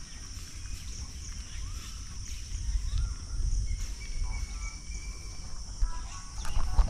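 Outdoor ambience: a steady high-pitched insect drone with scattered bird chirps over a low rumble, the rumble growing louder near the end.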